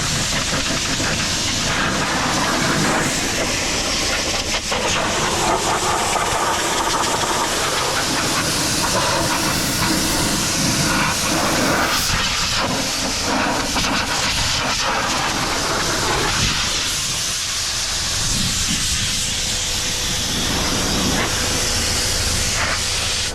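Compressed air hissing steadily from an air hose blowgun, wavering in strength as the jet is moved over the machine to blow off dirt.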